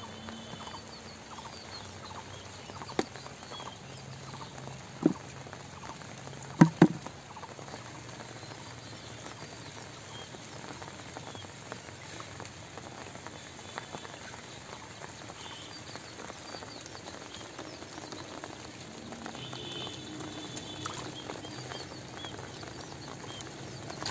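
Bare feet and hands moving through wet mud and shallow water, with a steady light patter and squelch. There are three sharp knocks in the first seven seconds, the last a quick double.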